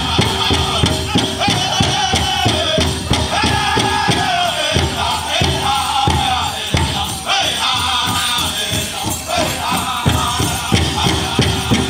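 Pow wow drum group singing a chicken dance song in high voices over a steady, fast beat on a big drum.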